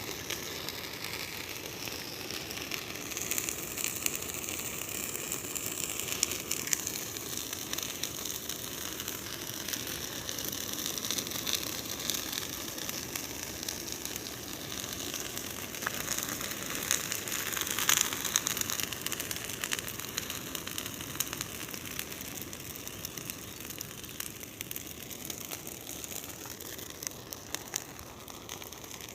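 Large bonfire burning: a steady hiss of flames with continual crackling and popping, a little louder about two-thirds of the way through.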